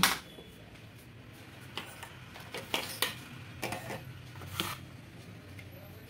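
Handling noise from vacuum cleaner attachments: a few scattered light knocks and clicks as the extension and straight pipes are picked up and set down.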